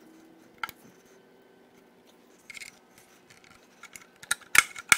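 Metal hand tools clicking and tapping on the engine while the timing cover is worked loose. A single click, then a short scrape, then a quick cluster of sharp metallic clicks near the end.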